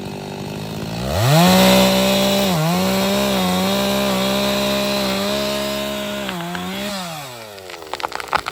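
Chainsaw revving up from idle about a second in and running at full throttle through the back cut of a large pine, its pitch dipping slightly under load, then winding back down near 7 s. Near the end comes a quick run of sharp cracks from the tree as it gives way.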